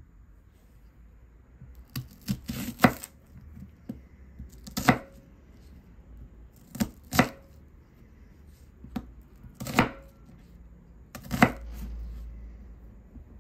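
Chef's knife cutting a raw onion on a bamboo cutting board: a sharp knock of the blade on the board every second or two, some with a short crisp crunch as the knife goes through the onion.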